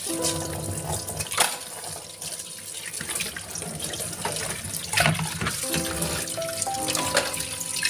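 Tap water running into a stainless steel sink as dishes are rinsed under it, with a couple of sharp knocks of dishes about a second and a half in and again near five seconds. Background music with a simple melody plays over it.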